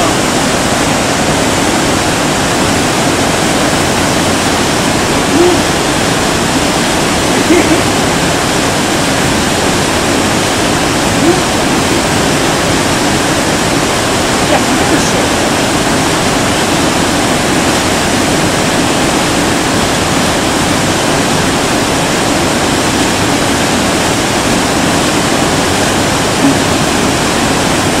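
Whitewater of a mountain river rushing over boulders: a steady, full rush of water.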